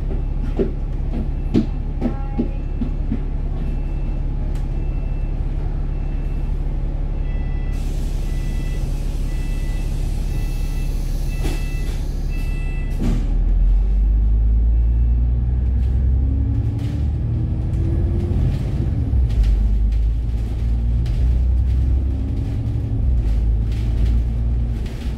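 A bus's diesel engine idling with a steady hum, while short high beeps repeat and a long hiss of air runs for several seconds. About halfway through the engine grows louder and climbs in pitch, dropping back and climbing again, as the bus pulls away through its gears.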